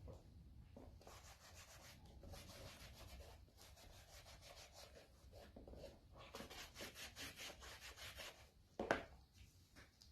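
Faint rubbing as wax is worked into vegetable-tanned leather, in short back-and-forth strokes that quicken to about four a second in the second half. A single sharp knock near the end.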